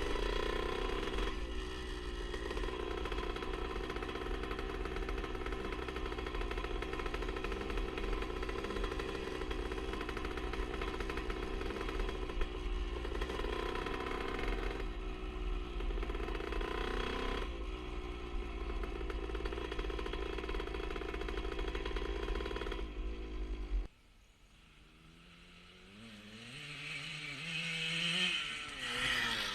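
1977 Honda CR125 Elsinore's two-stroke single-cylinder engine running steadily on its new HPI ignition, with a low rumble underneath. About 24 seconds in the sound cuts off abruptly, then the engine comes back fainter, rising in pitch and getting louder as it revs.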